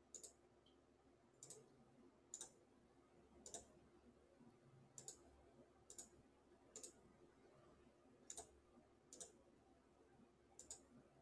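Faint computer mouse clicks, about ten of them at uneven intervals roughly a second apart, most heard as a quick double tick of button press and release.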